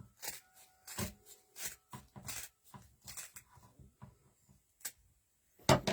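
Scissors cutting through a thick coconut fiber planter liner: a series of short, irregular snips, with a louder knock near the end.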